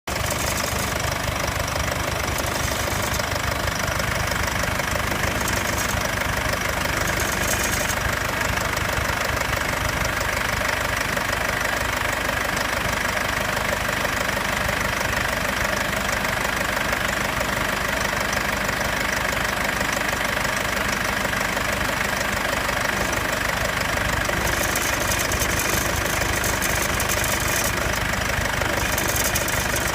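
Mercedes-Benz W205 C220 CDI four-cylinder diesel idling steadily, with a light rattle and metallic clinking running through it after the cold-start phase.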